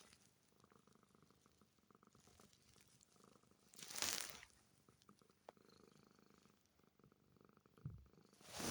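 Domestic cat purring softly, with a louder breathy swell about four seconds in and another at the end.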